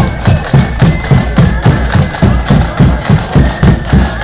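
Marching band playing: drums beating steadily, about three beats a second, under a high, held wind melody.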